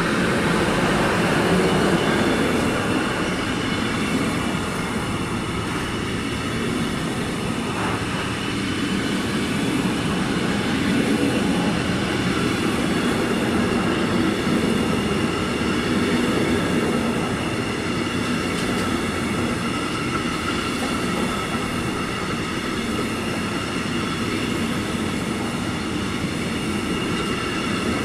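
Intermodal freight train's container wagons rolling past at speed close by: a steady rumble of wheels on rail, loudest just at the start, with a steady high whine over it from about a third of the way in.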